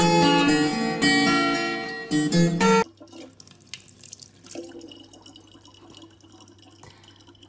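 Plucked acoustic guitar music that cuts off suddenly about three seconds in. It gives way to a faint trickle of a thin stream of tap water running from a faucet into the neck of a plastic water bottle.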